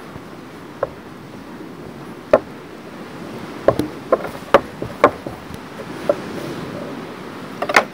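Irregular sharp knocks and taps of kitchen utensils, about a dozen, bunched in the middle and again near the end, over a steady background hiss.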